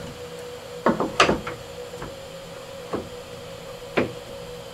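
Hardwood board being flipped over and set back down on the CNC machine's spoil-board bed: a quick cluster of wooden knocks about a second in, then single knocks near three and four seconds in, over a steady hum.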